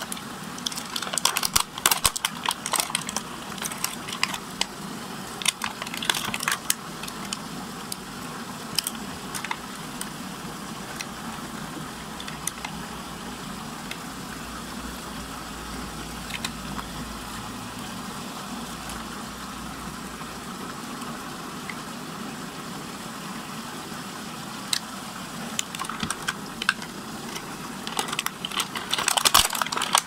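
Clear plastic packaging crinkling and crackling as a Rubik's cube is unwrapped by hand, in bursts in the first few seconds and again near the end. Under it runs the steady rushing hum of a water whirlpool.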